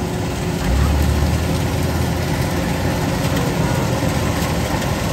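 Kubota DC-93 rice combine harvester running under load as it cuts rice: a steady diesel engine with the clatter of its cutting and threshing machinery, growing louder and deeper about a second in.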